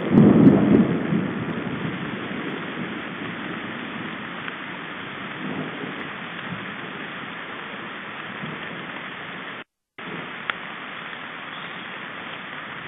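Steady hiss of rain falling on the forest around a stork nest, with a low rumble in the first second or two that fades away. The sound drops out completely for a moment just under ten seconds in, followed by a single click.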